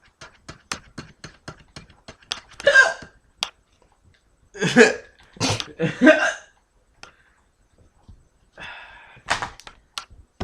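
A person hiccuping several times, short loud voiced hiccups a second or more apart, the first about two and a half seconds in. A run of light, rapid clicks comes before them.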